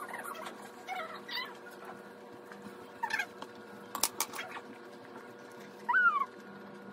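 Several short squeaky animal calls that slide up and down in pitch, with a sharp click about four seconds in.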